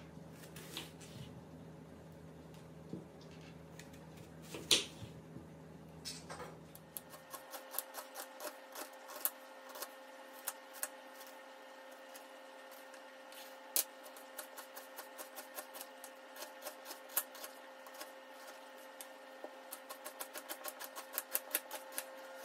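Kitchen knife slicing red onions on a bamboo cutting board, each cut ending in a sharp tap of the blade on the board. The taps are scattered in the first few seconds, then become a steady run of quick cuts that bunch up faster near the end.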